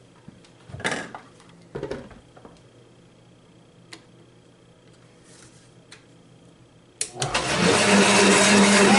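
Two hard plastic clunks as a blender jar is set on its base, a few light clicks at the controls, then about seven seconds in a Vitamix 750 Professional Series blender's motor starts and runs loud and steady.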